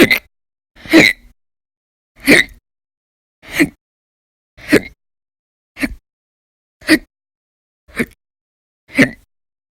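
A person hiccuping repeatedly, about one short, sharp, loud hiccup a second, nine in a row: a bout of persistent, violent hiccups.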